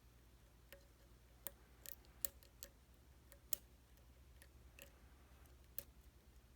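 Faint, irregular metallic clicks of a hook pick working the pins of a pin-tumbler lock held under a tension wrench, about a dozen ticks spread over several seconds.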